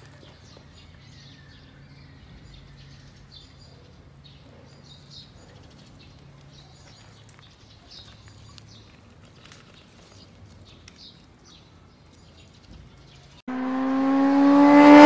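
Faint outdoor ambience with small birds chirping and a low hum. About thirteen seconds in, a loud engine sound cuts in suddenly, swelling and then dropping in pitch like a car passing by.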